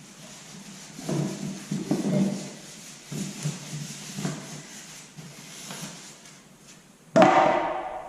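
Knocks and clatter of a new toolbox being handled out of its packaging, ending with a sudden loud bang that rings on and fades about seven seconds in.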